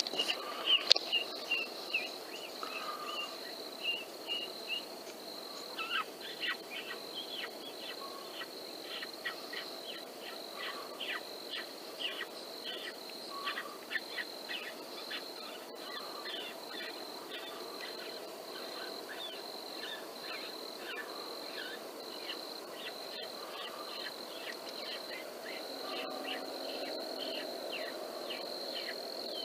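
Night field ambience: a steady high-pitched insect drone with many short, irregular chirps laid over it.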